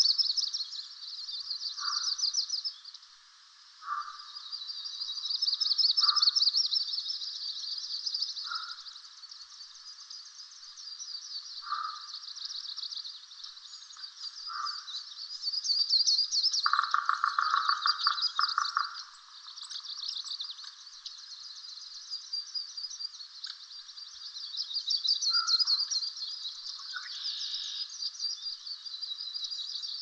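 Dawn chorus of birds and frogs: high, fast trills overlap without a break, while lower pulsed calls come every couple of seconds, with one longer lower trill about two-thirds of the way through.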